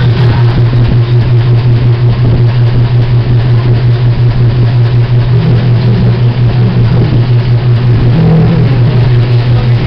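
A motor or machine running steadily: a loud low hum that pulses about five times a second.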